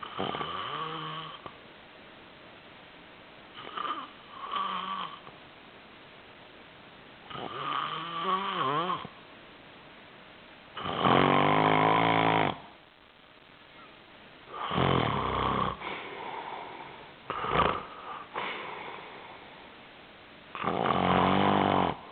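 A person snoring loudly, one snore every three to four seconds, each a pitched rasp that rises and falls. A short pair of snores comes a few seconds in, and the loudest snore is near the middle.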